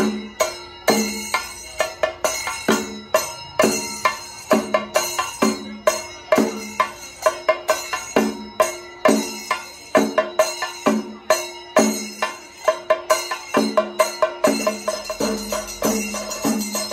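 Kerala chenda drums beaten with sticks by a group of drummers, a fast, driving rhythm of sharp strokes with heavier accents recurring through it.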